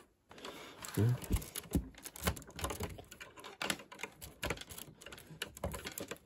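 LEGO bricks and plates being handled, a quick run of light, irregular plastic clicks and taps.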